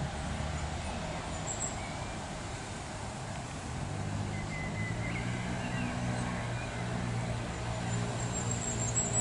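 Low, steady hum of a motor vehicle engine, growing louder about halfway through, with a few faint, high bird chirps.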